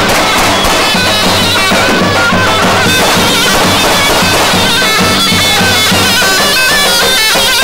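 Zurna playing a folk melody in stepping notes over the beat of a davul bass drum.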